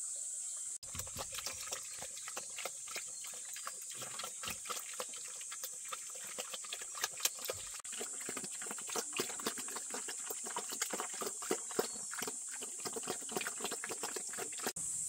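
Pigs feeding at a trough, starting about a second in: rapid, irregular wet slurping, smacking and chomping.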